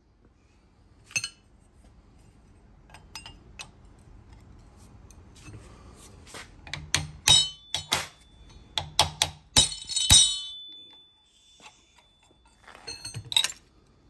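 Hammer blows on a cold chisel splitting the steel bearing retainer ring off a rear axle shaft held in a vise. The sharp metallic strikes come in a quick run in the middle, some leaving a ringing note. A few lighter clinks come before the run and two more strikes near the end.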